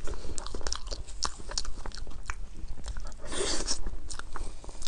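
A person biting and chewing an icy chocolate dessert close to the microphone: many small crisp crunching clicks, with a louder crunch about three and a half seconds in.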